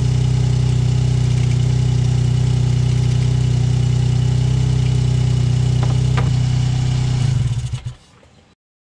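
Mitsubishi Colt 1.1i's engine idling steadily, heard from beneath the car at the exhaust center pipe joint, which still leaks after a second clamp. There are a couple of light clicks about six seconds in, and the sound cuts off near the end.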